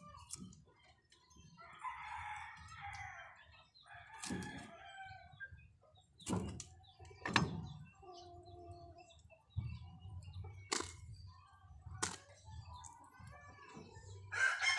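A cleaver knocking several sharp times on a wooden chopping block, with chickens clucking and a rooster crowing in the background.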